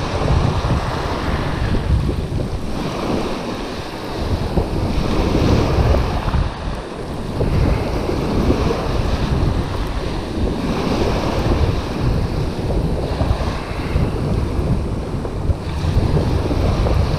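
Small waves breaking and washing up a shingle beach, the hiss of the surf swelling and fading every few seconds, under a steady low rumble of wind buffeting the microphone.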